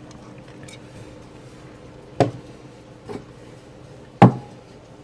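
An RTX 3070 graphics card being fitted into a desktop PC case, knocking against the case three times, the last knock the loudest, over a faint steady hum.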